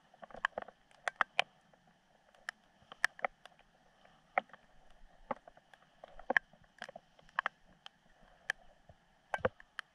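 Water dripping after a rainstorm: scattered sharp drips and taps at irregular intervals, one or two a second, over a faint steady background.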